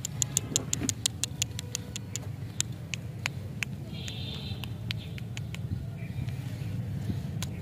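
A steady low rumble with sharp, high ticks over it: a quick run of ticks in the first second and a half, then scattered ones, and a short hiss about four seconds in.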